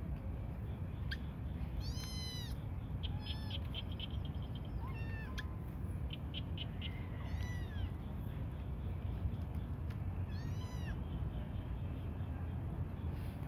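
Kittens meowing, short high-pitched mews repeated every couple of seconds, over a steady low rumble.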